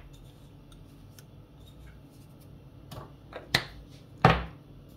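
Spice jars being handled during seasoning: a few small scattered clicks, then two louder knocks past the middle, the last one dull and heavier.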